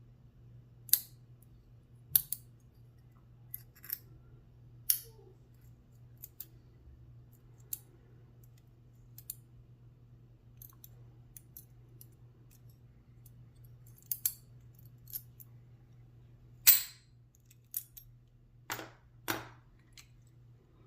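Lock picking on a steel round-body padlock: a hook pick working the pins under top-of-keyway tension, giving sparse, irregular metallic clicks and ticks. The loudest click comes about 17 seconds in, followed by a few more near the end, over a faint steady hum.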